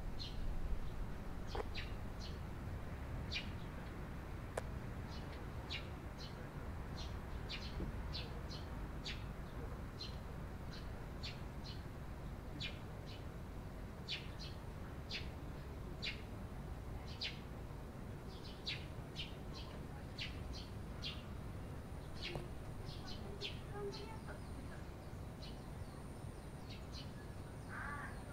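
Eurasian tree sparrows chirping: short, sharp chirps repeated roughly twice a second, over a steady low background rumble.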